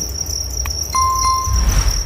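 Crickets chirping in a steady, high, pulsing trill. About a second in, a brief clear ringing tone sounds for about half a second.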